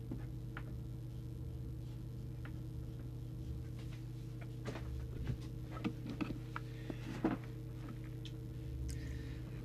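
Steady low electrical hum with a few small clicks and light knocks, bunched between about halfway in and three quarters of the way through.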